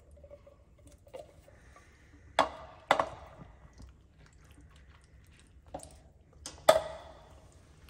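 A tin can of red kidney beans being emptied into a dish: four sharp knocks with a brief ring, two about two and a half seconds in and two near the end, the last the loudest, with quiet scraping and stirring of a silicone spatula between them.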